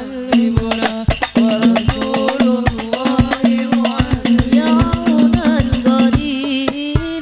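Sholawat music from a hadrah-style group: fast, dense frame-drum and jingle strikes over a held low note and a bending melody line.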